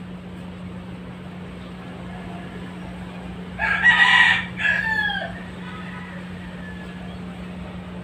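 A rooster crows once, about three and a half seconds in: a loud held note that breaks into a second part falling in pitch and trailing away. A steady low hum runs underneath.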